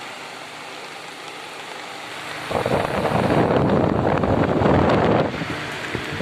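Mondial Maxi Power 40 column fan running, its airflow rushing over the microphone; the rushing grows much louder for about three seconds partway through, then eases off.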